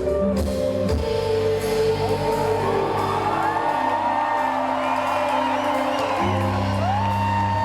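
Live hip-hop backing music with sustained bass notes as a song ends, and audience members whooping over it.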